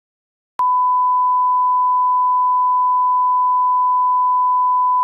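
A 1 kHz line-up test tone played with colour bars: one steady, unwavering beep that starts abruptly about half a second in. It is the reference tone used to set audio levels.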